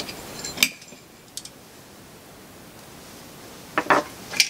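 Light metallic clicks and knocks of small turbocharger parts being handled on a workbench: one sharp click about half a second in, then quiet, then a short cluster of clicks and knocks near the end.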